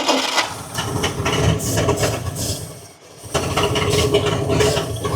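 1953 Kaiser Manhattan's Continental 226 flathead six being cranked on the starter and firing unevenly. It cuts out about three seconds in, then cranks again. This is the first attempt to start it after freeing its stuck valves.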